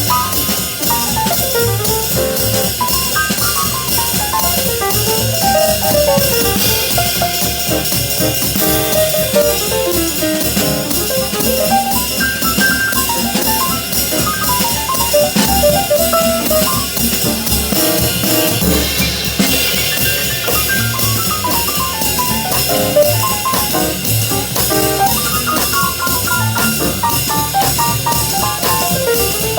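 Jazz group playing, with a drum kit keeping time in a steady, evenly spaced cymbal pattern under a winding melodic line.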